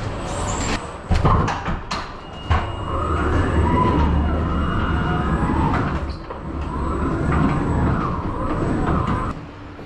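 Goods being loaded into a truck trailer: a few sharp knocks in the first few seconds, then a long wavering squeal that rises and falls in pitch over a low rumble, stopping shortly before the end.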